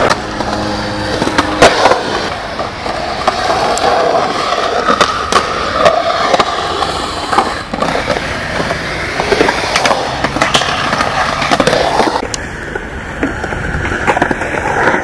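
Skateboard wheels rolling over a concrete skatepark bowl, a steady rumble that rises and falls as the board carves. Sharp knocks of the board come several times.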